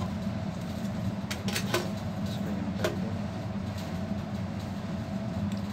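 Sharp clicks and knocks of the desktop's steel chassis and hinged hard-drive cage being handled, several in quick succession about a second or two in, over a steady low hum.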